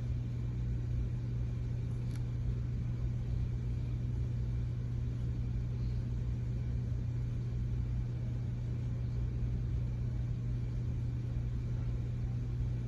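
Steady low hum of room tone with nothing else happening, and a faint click about two seconds in.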